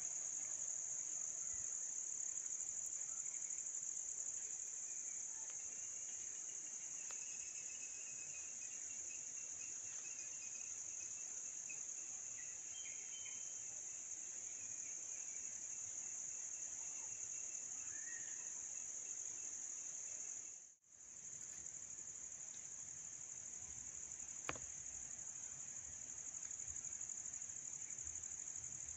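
A chorus of insects droning steadily at a high pitch, with faint chirping behind it. The drone breaks off briefly about three-quarters of the way through, and a single sharp click follows a few seconds later.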